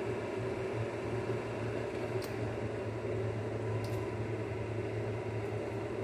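Steady low mechanical hum with an even hiss, the running of a household appliance such as a fan or air conditioner, with two faint clicks about two and four seconds in.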